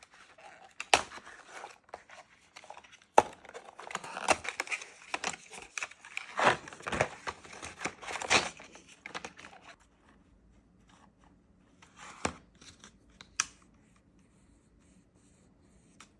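Paper or plastic packaging being torn and crinkled by hand: irregular rustling and tearing for about ten seconds, then a few short clicks.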